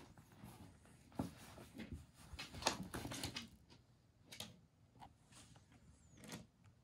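Cats scuffling in play on a floor mat over a hard floor: scattered soft thumps, scrapes and rustles of paws and bodies, busiest in a cluster a few seconds in.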